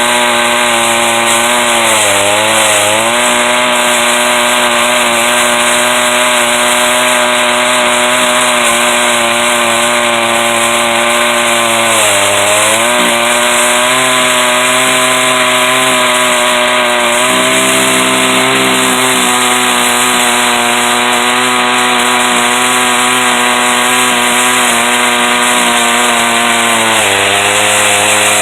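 Stihl 038 two-stroke chainsaw running at high revs in an Alaskan chainsaw mill, cutting through a log lengthwise. Its engine note is steady and loud, sagging briefly about two seconds in, near the middle and near the end.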